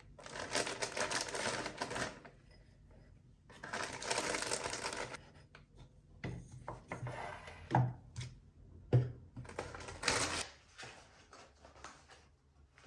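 Shopping bags and packaging being handled: rustling in two bursts, then a scatter of clicks and light knocks as items are moved about.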